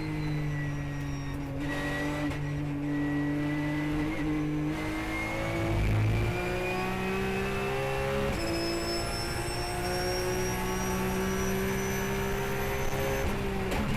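Porsche 911 GT3 Cup race car's flat-six engine heard from the cockpit at high revs, rising in pitch under full acceleration, with an upshift about eight seconds in, after which it climbs again. A short low thump near the middle.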